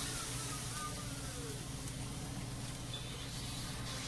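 A steady low buzzing hum under a faint, even hiss.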